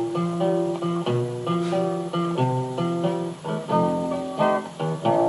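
Background music: a plucked acoustic guitar playing a run of chords and notes that change every half second or so.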